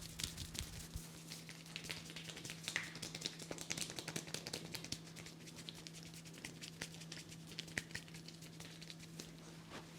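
Hands working on a head during a head massage: a quick, irregular run of soft pats, taps and rubs on skin and hair, thinning out midway, over a steady low hum.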